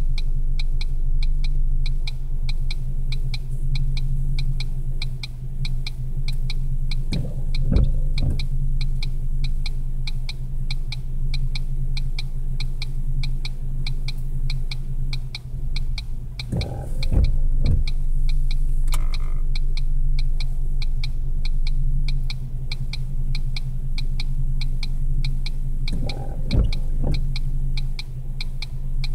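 Car engine idling, heard from inside the cabin, with a steady low hum and a fast, even ticking. The intermittent windshield wipers sweep three times, about every nine seconds, each sweep a pair of thumps.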